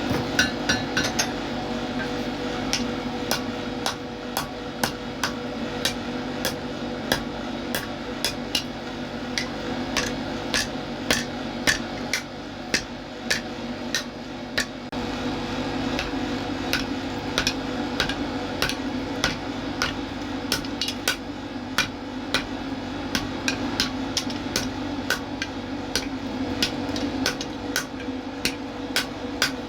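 Hand hammer striking metal in a steady rhythm, about two ringing blows a second, over a steady hum.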